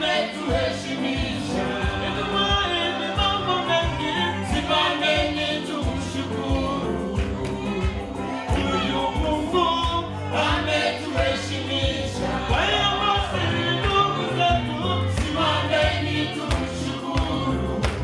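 Gospel song sung by a small group of men and women into microphones, over a steady bass line and drum beat.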